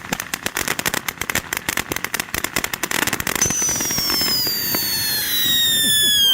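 500-gram fountain firework (Red Lantern SS Thrusters) burning with a dense, rapid crackle. About three and a half seconds in, a loud whistle starts and slowly falls in pitch.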